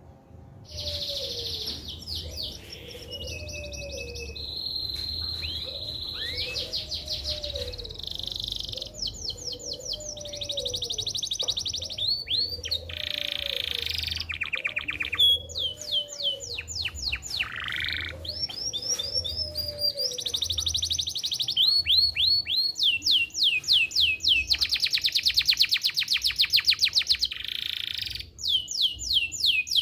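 Male domestic canary singing a long, unbroken song of rapid trills and fast repeated notes, starting about a second in.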